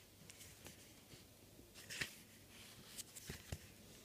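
Faint rustling of thin Bible pages being leafed through by hand, with a few soft page flicks about halfway through and again near the end.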